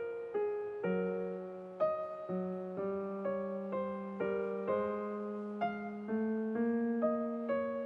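Background piano music: slow, gentle notes played one after another, about two a second.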